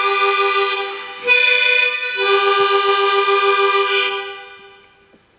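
Harmonica cupped against a handheld microphone, playing sustained chords of a melody; a brief break about a second in and a change of chord about two seconds in, then the last chord held and fading out in the final seconds.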